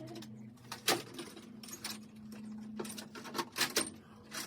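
Scattered sharp metallic clicks and clinks of small parts or tools being handled, over a steady low hum.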